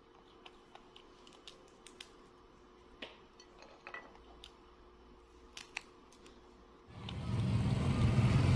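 Faint, sharp cracks and clicks of a monkey shelling peanuts in its hands, about a dozen spread irregularly over the first seven seconds. About seven seconds in, loud motorbike traffic starts suddenly: a steady low engine hum with road noise.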